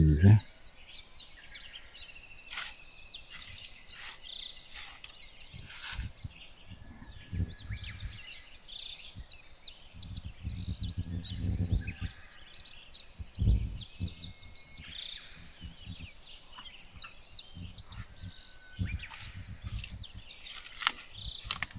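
Several birds chirping and singing in quick, overlapping calls, with a few low rumbles now and then.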